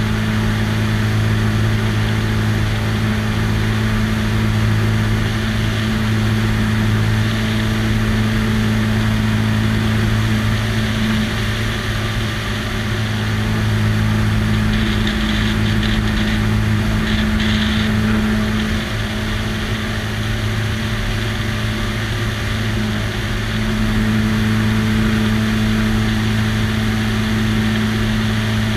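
Biplane's piston engine and propeller droning steadily in cruise, with a rush of air over the wing-mounted microphone. The engine note eases slightly about two-thirds of the way through, then comes back up.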